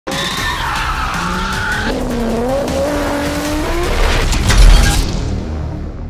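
A drift car's engine revving up and down with tyres squealing, over music. About four and a half seconds in a deep boom hits, the loudest moment, and the sound then fades away.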